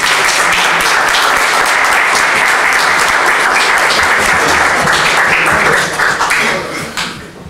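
Audience applauding loudly, starting suddenly and dying away over the last second or two.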